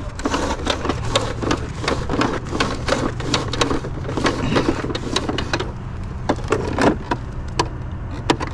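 Irregular rapid clattering and knocking over a steady low engine hum.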